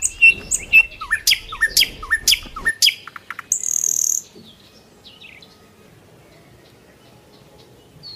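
Small birds chirping and twittering in quick, repeated calls, several sweeping downward in pitch, for the first few seconds. A short high hiss follows about three and a half seconds in, then only faint background.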